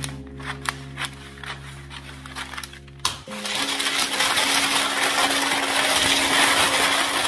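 Baking paper: a few sharp scissor snips in the first three seconds, then, from about three seconds in, loud continuous crinkling and rustling as the sheet is gathered and crumpled by hand. Background music plays throughout.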